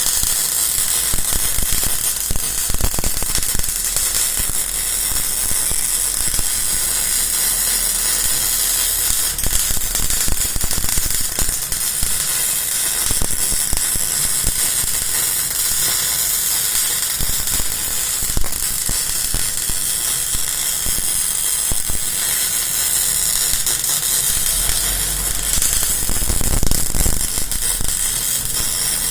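MIG welding arc of a bore welder, crackling steadily and unbroken as it lays weld around the inside of a worn bore.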